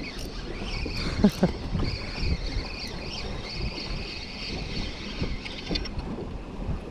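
Wind on the microphone and water moving around a kayak at sea, with a high, wavering steady whine over it that fades out near the end. A short loud sound comes about a second in.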